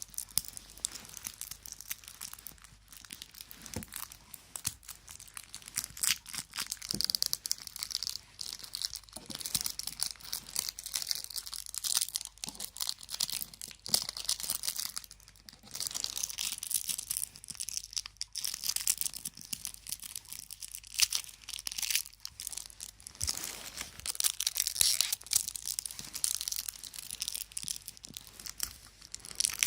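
Packaging of a new alarm clock being handled and unwrapped by hand: irregular crinkling and tearing with many small clicks, coming in uneven spells.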